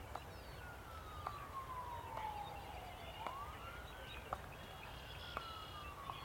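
Faint emergency-vehicle siren wailing: a single tone slides slowly down, sweeps quickly back up about three seconds in, then slides slowly down again.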